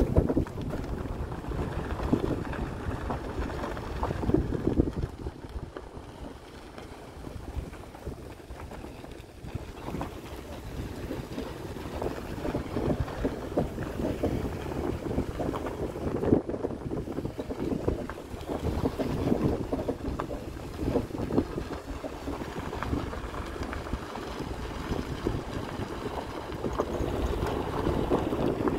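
Wind buffeting the microphone over the low rumble of a car driving slowly on a gravel road.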